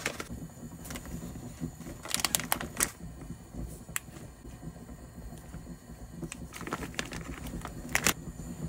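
Irregular light clicks, taps and crinkles of a plastic food bag being handled in a bowl with a spoon and a bottle, with a cluster of clicks about two seconds in and another near the end.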